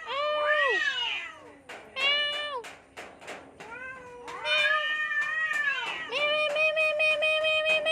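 Cats caterwauling at each other in a fight standoff: a series of long, wavering yowls rising and falling in pitch, the last one held on a steady pitch for about two seconds.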